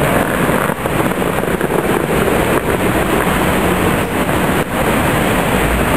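Steady traffic noise of a busy city street: engines running and vehicles passing, with a low rumble underneath.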